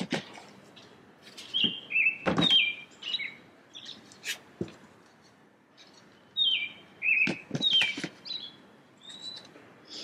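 A songbird singing repeated whistled phrases that slur downward, with several sharp knocks as plastic nursery pots are set into a plastic storage bin.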